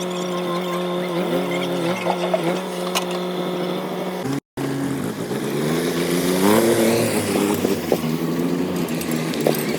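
Heavy diesel engine of earth-moving or farm machinery running under varying throttle, its pitch shifting up and down. It breaks off for an instant near the middle, then revs up in steps.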